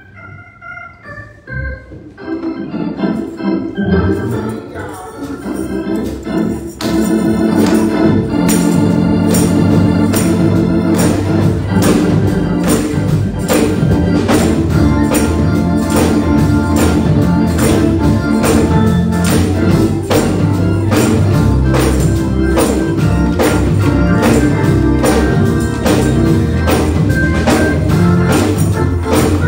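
Gospel music on an organ, starting softly with a few chords and building. From about seven seconds in, drums join and the band plays on at full level with a steady beat.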